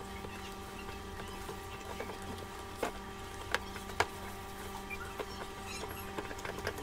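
Hands squishing and mashing a moist rice-and-potato dough in a plastic bowl, with soft scattered clicks and a few sharper taps about three to four seconds in. A steady low hum sits underneath.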